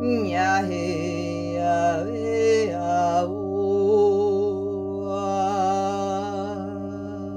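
Singing bowls ringing in a steady sustained drone, with a voice over them singing wordless light-language sounds in sliding, wavering pitches. The voice is strongest in the first three seconds and returns more softly near the middle.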